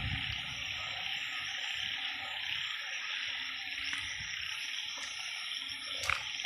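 Steady chorus of calling narrow-mouthed frogs (อึ่ง), with insects trilling high above them. There are a couple of faint clicks near the end.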